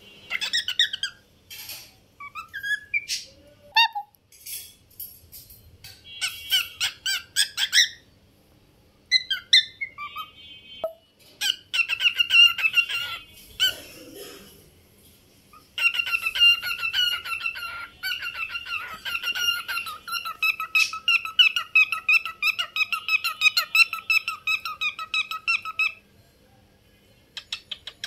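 Male grey cockatiel singing: a string of separate whistles and chirps, then in the second half a long, fast run of repeated warbled notes.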